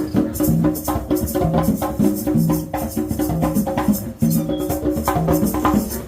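Live street music: a saxophone playing a melody of held notes over a steady beat of hand percussion clicks and shakes.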